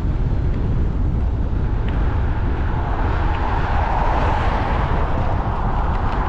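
Wind buffeting a cap-mounted GoPro's microphone while riding, a steady low rumble. In the middle a hiss swells and fades over a few seconds.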